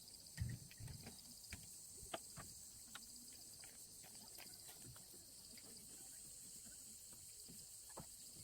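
Insects chirping in a steady, faint, high-pitched chorus with an even pulsing rhythm, with a few soft scattered clicks and knocks.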